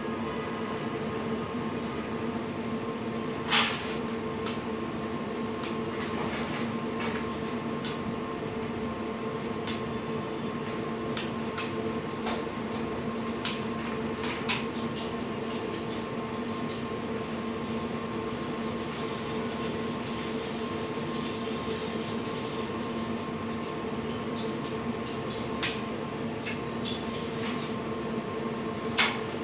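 Steady mechanical hum, like a motor or fan running, with a few sharp clicks and knocks scattered through it.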